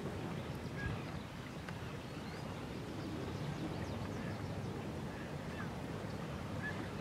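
Open-air lakeshore ambience: a steady low rushing noise with a few faint, short bird calls scattered through.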